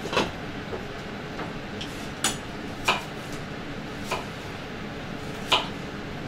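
Kitchen knife clicking against a cutting board as apples are cut, five separate clicks a second or so apart, over a steady low background noise.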